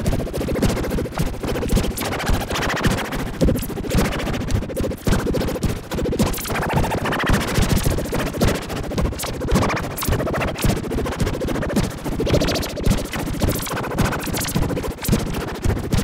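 Emergency alert alarm audio: loud, harsh, distorted electronic noise with a rapid choppy, crackling texture and no steady siren tone.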